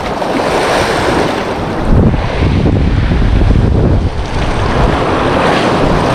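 Sea waves washing against the shore with wind buffeting the microphone, the low rumble growing heavier about two seconds in.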